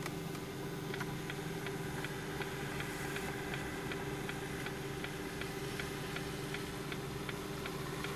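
Car engine idling with a steady low hum, under an even hiss of rain and water. Sharp regular ticks come about two to three times a second throughout.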